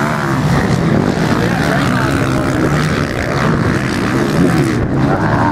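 Motocross dirt bike engines revving up and down as the bikes take a corner and accelerate away, loud and continuous with the pitch rising and falling repeatedly.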